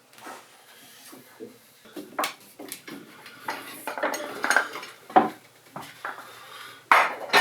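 Metal clinks and knocks of clamps being handled and set on a chair frame during glue-up, a string of separate sharp strikes with the loudest near the end.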